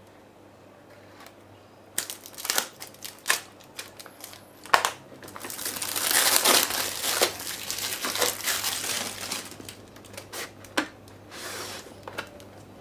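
Product packaging being unwrapped by hand: a few sharp clicks and snaps about two seconds in, then a longer stretch of crinkling plastic wrap, with scattered clicks near the end.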